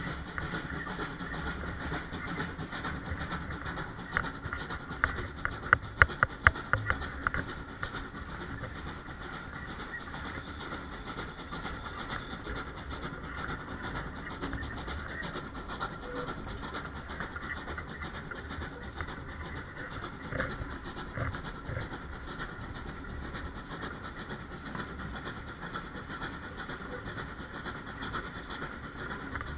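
Steam-hauled heritage railway carriage running on the line, heard from an open carriage window: a steady rumble of wheels on rails, with a quick run of sharp clacks over rail joints about four to seven seconds in.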